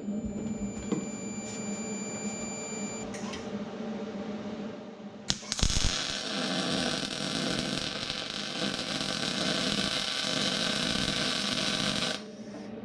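MIG welder arc crackling steadily for about six seconds, starting after a sharp strike about five seconds in and cutting off suddenly near the end, as weld is laid to build up a worn quick-coupler hook. Before the arc, a steady hum.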